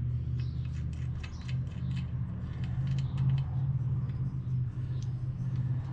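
Light clicks, ticks and rustling from hands working a deflated tire and inner tube off the wheel rim, over a steady low hum.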